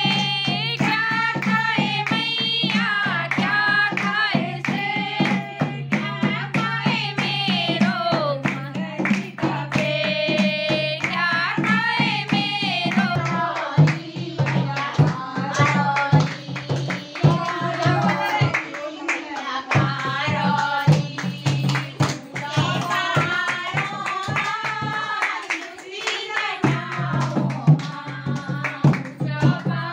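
Women singing a devotional song together, keeping time with handclaps and a hand-played dholak drum.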